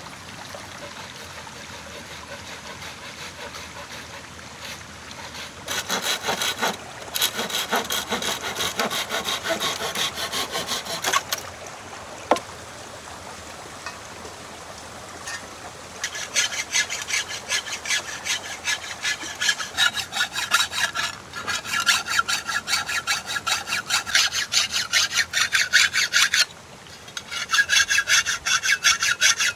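Hand saw cutting wood in fast, rhythmic strokes, in three bouts: one starting about six seconds in, a longer one after a pause of a few seconds, and a short one near the end.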